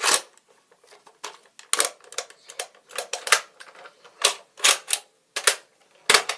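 Plastic clicking and crackling as an orange Nerf N-Strike SonicFire dart blaster is handled: about a dozen sharp, irregular noises.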